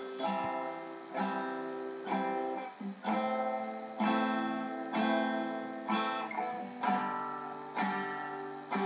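Acoustic guitar strummed, one chord about every second, each left to ring and fade before the next.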